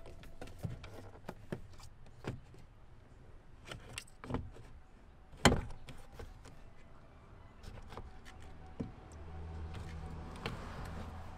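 Plastic retaining clips of a 2018 Nissan Titan's door panel being pried loose with a trim removal tool: scattered clicks and knocks, the loudest about five and a half seconds in. A low steady hum comes in near the end.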